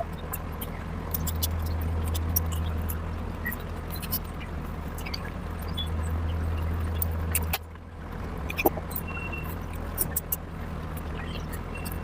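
Eating sounds: many short, sharp clicks and smacks of someone chewing and handling food, over a steady low hum that drops out briefly about two thirds of the way through.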